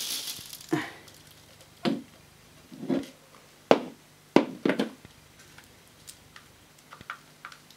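Plastic dirt cup and filter assembly of a handheld vacuum being taken apart by hand. A brief rush of dry oats and flour spills from the filter onto floor tiles at the start, then come several separate plastic clicks and knocks as the parts are handled.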